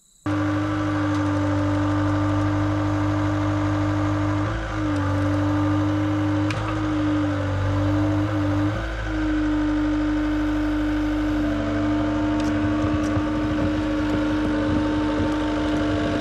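Cat 239D compact track loader's diesel engine running steadily, its note dipping briefly a few times as it moves off carrying a load on its forks.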